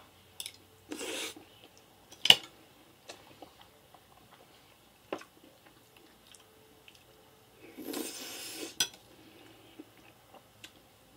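Fork clinking and scraping on a plate while scooping up goulash, with close-up eating noises in between. The loudest sound is a sharp clink a little over two seconds in.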